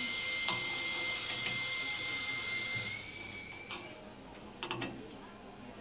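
Steady high hiss with faint steady whining tones, dropping off about three seconds in. Then a few light clicks and taps as a gimbal mounting plate is handled against the bolts of a metric thread-checker board.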